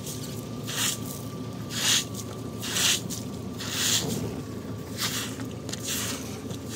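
Short straw broom sweeping muddy water off a wet concrete slab: a wet swish with each stroke, about once a second.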